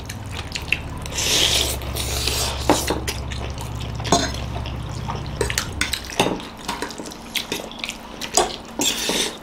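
Metal forks clicking and scraping on ceramic plates while noodles are slurped up in quick, wet, hissy sucks. A low hum runs under the first half and stops about five and a half seconds in.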